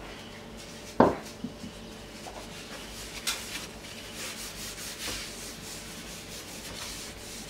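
Hand rubbing cooking oil across a metal baking tray, a soft, uneven wiping sound. A single sharp knock about a second in is the loudest sound.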